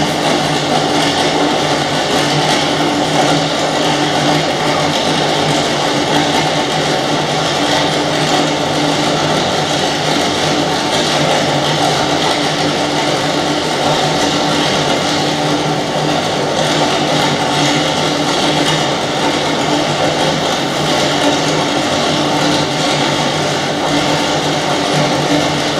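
Recorded rain sound in a stage soundtrack: a steady, unbroken hiss of falling rain with a low steady hum beneath it.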